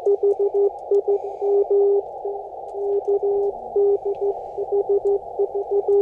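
Morse code (CW) from a ham radio transceiver: a single steady tone keyed in quick dits and dahs over the hiss of the receiver's narrow audio passband.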